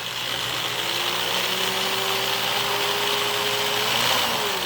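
Electric drill with a 1/8-inch bit boring a pilot hole for a cabinet handle, its motor running at steady speed, then changing pitch and winding down as the trigger is released near the end.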